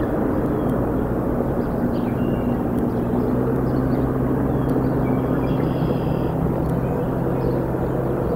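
Steady low engine-like drone over outdoor background noise, a little stronger from about three seconds in, with a few faint high chirps.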